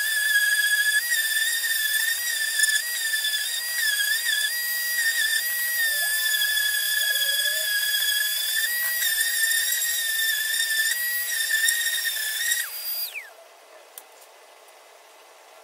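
Random orbital sander running against the epoxy-and-fibreglass skin of a 3D-printed hydrofoil: a steady high whine whose pitch dips and wavers as the pad is pressed and moved. About 13 seconds in it is switched off and spins down with a falling whine.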